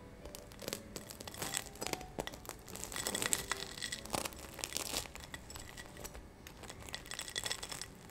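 Knife sawing through the crisp breadcrumb crust of a Nutella-filled bread ball, a dense run of crackling and crunching. It is thickest about three to five seconds in and picks up again near the end.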